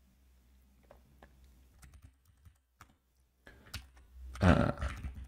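Keystrokes on a computer keyboard, scattered taps with a louder flurry near the end.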